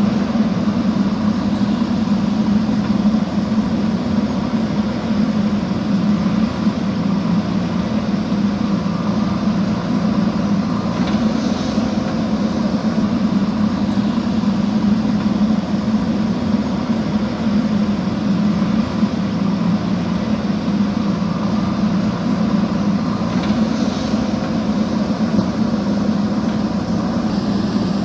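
JCB backhoe loader's diesel engine running steadily, with an even low hum that holds at one level.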